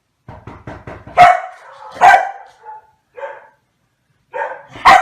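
A dog barking in a series of short barks, the loudest two about a second and two seconds in, with another loud bark near the end.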